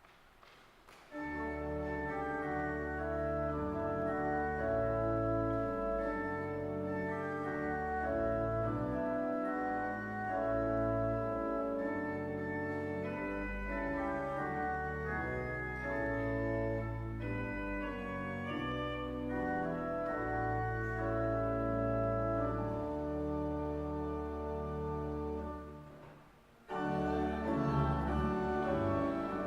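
Church organ playing slow sustained chords over long-held bass notes, starting about a second in; it breaks off briefly near the end and starts again.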